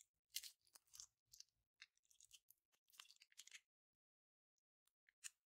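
Slime being squeezed and pressed by hand, giving soft clusters of small crackling pops and clicks for the first three or so seconds, then a couple of single clicks near the end.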